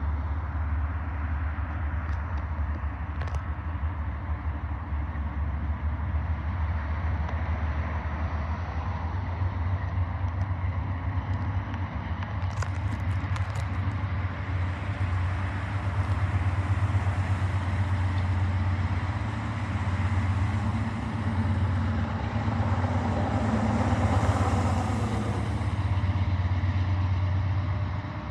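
Engine running with a steady low rumble; a few sharp clicks come about halfway, then a rushing noise swells louder and fades over the second half.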